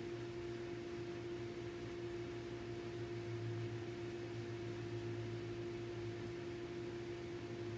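A steady hum, one clear tone with a fainter higher tone and a low drone beneath it, over a faint even hiss, unchanging throughout.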